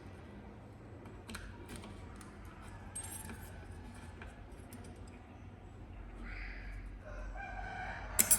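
Scattered light clicks and taps, like small metal parts being handled, with two louder sharp clicks near the end.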